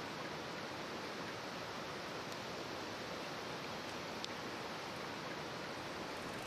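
Steady, even rush of flowing river water, with a couple of faint ticks.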